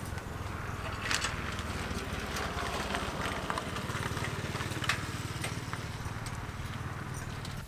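A small motorbike engine running steadily, with scattered light clicks and rattles over it.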